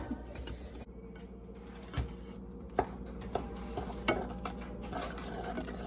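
Kitchen utensils and dishes clinking: a few sharp clicks and knocks about two, three and four seconds in, over a steady low hum.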